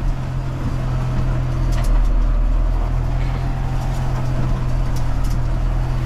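Valtra tractor engine running steadily at moderate revs, driving the rake through the PTO set to 540 Eco.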